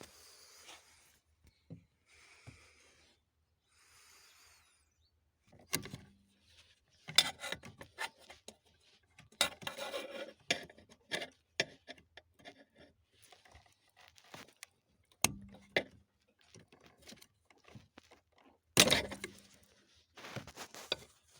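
Hand tools and parts clicking, knocking and scraping as car interior trim and fittings are dismantled to reach the power steering coupler. It starts with faint rustling, then from about six seconds in comes a string of sharp knocks and clicks, the loudest one near the end.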